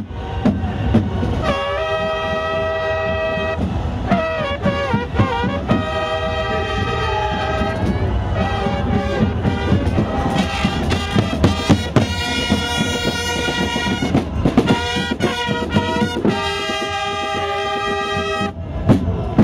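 Marching carnival band playing a tune, with trumpets and other brass holding loud chords and sliding between notes over steady drumming.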